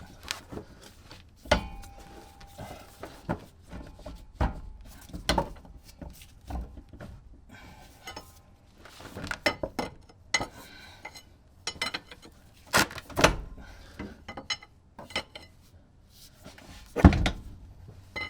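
Metal tools and parts clinking and knocking by hand in an irregular series of sharp knocks, the loudest a heavier knock near the end.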